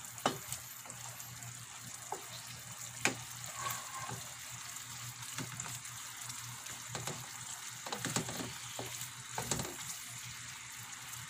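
Tuna chunks simmering in coconut milk in a nonstick pan with a steady hiss, while a wooden spatula stirs and scrapes, tapping against the pan with scattered sharp clicks, the loudest about a third of a second and about three seconds in.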